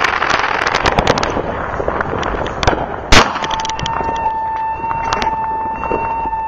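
Fireworks and firecrackers popping and crackling, then about three seconds in a single much louder gunshot from a 9mm handgun. Right after the shot a vehicle alarm starts, a steady high tone, set off by the shot.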